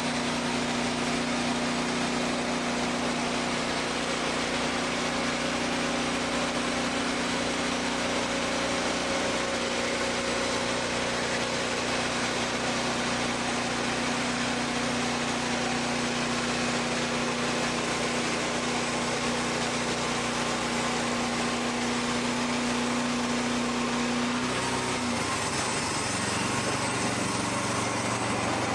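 Wood-Mizer portable band sawmill's engine running steadily under a constant drone, its pitch dropping and the sound changing near the end.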